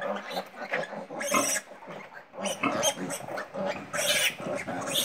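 Ten-day-old piglets grunting and squealing in short, irregular bursts while being caught and injected with iron.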